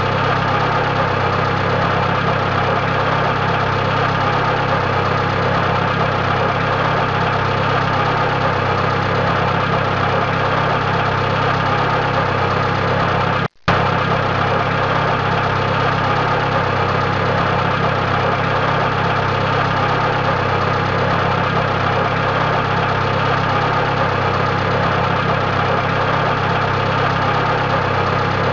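Car engine idling steadily. About halfway through, the sound cuts out for a moment and starts again.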